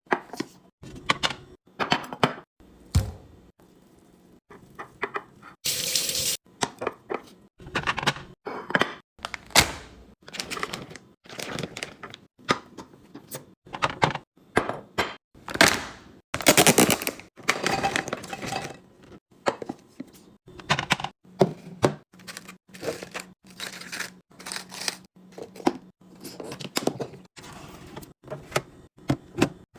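Food containers and packaging handled and set down while a fridge is restocked: a string of knocks, clacks and clinks, with longer stretches of rustling or crinkling around six seconds in and again around seventeen seconds in.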